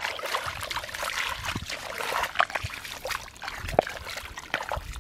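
Shallow muddy water splashing and trickling as hands and bare feet work through it, with many small wet clicks and squelches.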